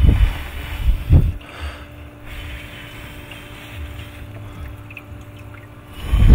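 Handling noise from a handheld camera being moved around inside an enclosure: a low rumble with dull thumps at the start, about a second in, and a louder one near the end. A faint steady hum runs underneath.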